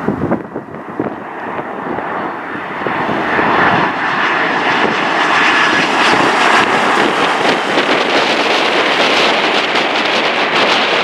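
Boeing 747-400 freighter's four jet engines at approach power on final approach, the jet roar building over the first few seconds as the airliner comes closer and then holding loud, with a faint whine in the middle. Near the end the roar turns rough and crackling as the jet passes low over the runway.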